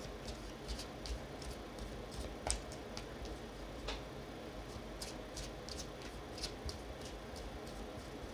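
A tarot deck being shuffled and handled in the hands: faint, irregular soft clicks and taps of cards against each other, over a low steady hum.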